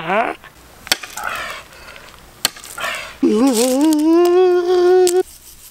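A man's wordless comic vocal sound, rising and then held on one steady pitch for about two seconds. Before it come two sharp knocks.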